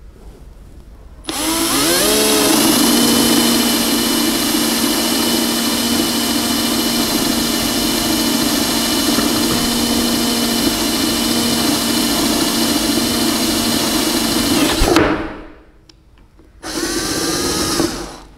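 Bosch GSB 120-LI 12 V cordless drill driver boring into a wooden board with a 10 mm wood bit: the motor whine rises as it spins up about a second in, runs steadily for about thirteen seconds, then stops. A shorter second run follows near the end.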